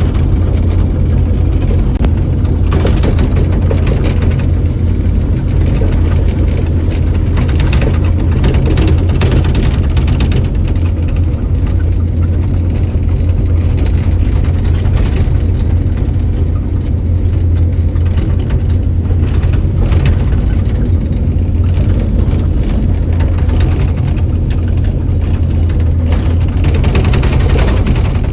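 Heavy earthmoving machine's diesel engine running steadily, a loud continuous low hum.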